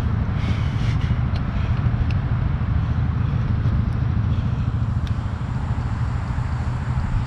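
An engine running steadily at idle, a low even rumble, with a few light clinks about a second in.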